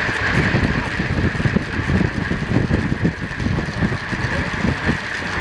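Wind buffeting a bike-mounted camera's microphone at about 30 mph: a gusty low rumble over the steady hum of a track bike's tyres and chain.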